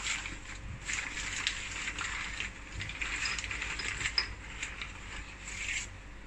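Crumpled newspaper and glossy printed paper crinkling and rustling in irregular bursts as it is pulled off a ceramic jar, with a few small crackles.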